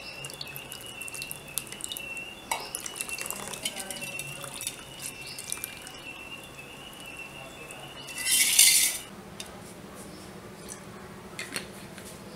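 Steel utensils clinking and scraping as a ground dal mixture is scooped from a small steel bowl into a steel kadai of curry. About eight seconds in there is a loud, short rush of noise lasting under a second.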